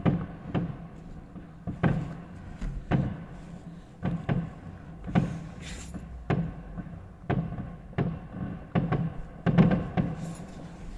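Aerial fireworks going off: a steady string of sharp bangs, about one or two a second, each followed by a short echo.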